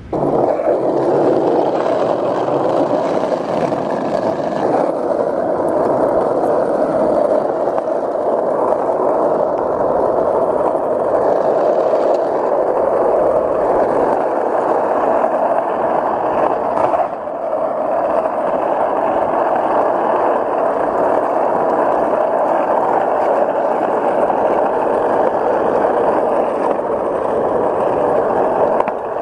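Skateboard's yellow urethane wheels rolling over fresh asphalt at speed: a steady, continuous rolling noise, with a brief dip about two-thirds of the way through.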